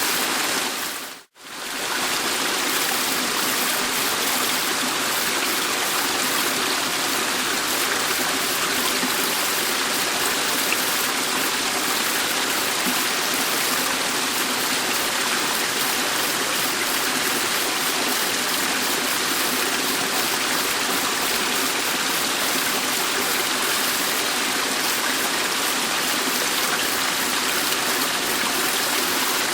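Dettifoss waterfall, the Jökulsá á Fjöllum river's glacial water plunging into its canyon, as a steady, even rush of falling water. The sound drops out briefly about a second in, then carries on unchanged.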